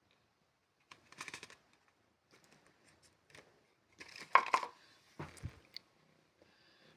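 Close rustling and scraping in several short bursts with a few sharp clicks; the loudest burst comes about four seconds in.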